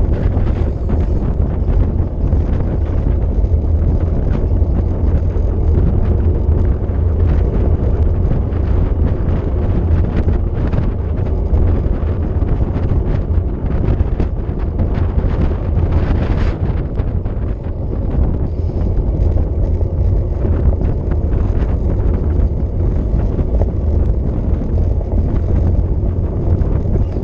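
Wind buffeting the microphone of a camera on a cyclist descending at speed: a loud, steady, low rumble.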